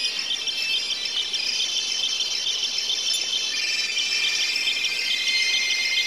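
Many mobile phones ringing at once in a dense, high chorus of ringtone tones and fast repeating beeps. A lower ringtone joins about halfway through.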